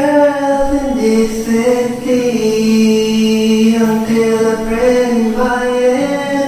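A man singing long, drawn-out held notes over a strummed acoustic guitar.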